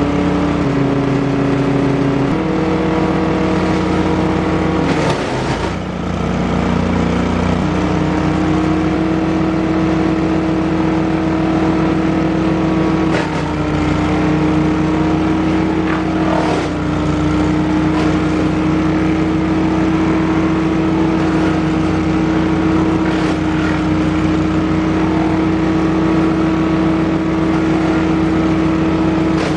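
DR wood chipper with an 18 hp Briggs & Stratton engine running steadily. Its engine note shifts a few times and dips briefly, with several short sharp bursts of noise from wood going through the chipper.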